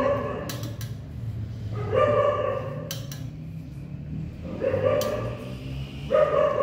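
A dog giving drawn-out, even-pitched cries, three or four in a row about every two seconds, with a few sharp clicks between them.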